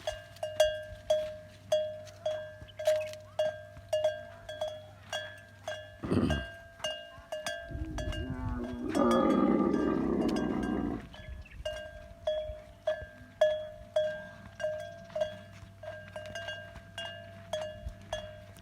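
A bell hanging on a Kharai camel clanking about twice a second in a steady rhythm, each stroke ringing briefly. About halfway through, a loud rumbling camel call lasts around three seconds over the bells.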